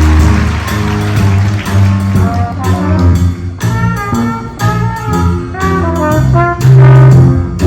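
A school band playing, with brass to the fore: short, separated notes over a steady bass line, then a loud held low note near the end.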